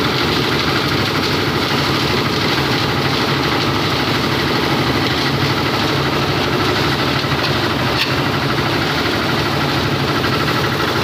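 Engine-driven concrete mixer running at a steady speed with its drum turning.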